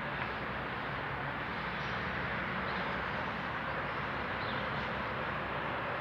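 Steady low rumble of vehicle engines, unchanging throughout, with a few faint short high chirps from birds.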